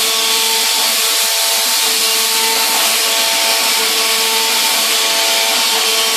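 A hydraulic tyre-cutting machine running, loud and steady. It has a pitched hum that breaks off and comes back roughly once a second.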